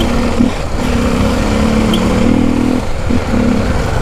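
Honda XR 250 Tornado's single-cylinder four-stroke engine running at low speed in stop-and-go traffic, its note coming and going in short stretches over a steady low rumble.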